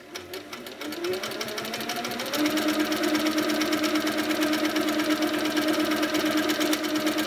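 Handi Quilter Sweet Sixteen sit-down longarm quilting machine starting up: its stitching speeds up over the first two seconds or so, then runs at a steady fast rate during free-motion quilting.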